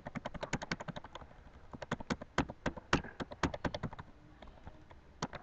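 Computer keyboard keys tapped in a quick run, about ten clicks a second for the first second and a half, then slower, irregular taps that thin out near the end.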